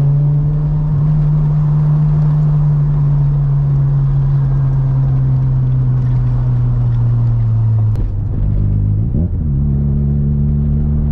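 Mazda FC RX-7's 13B rotary engine running at steady revs under way. About eight seconds in the note drops lower, rises and falls briefly, then holds steady again.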